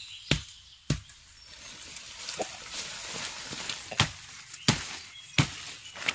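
Sharp chopping strokes of a blade cutting into wood. A few come scattered early on, then a steady run of strokes about two-thirds of a second apart in the second half.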